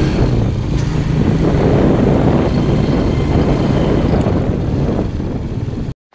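Motorcycle engine running steadily while being ridden, with wind rumbling on the microphone; it cuts off suddenly near the end.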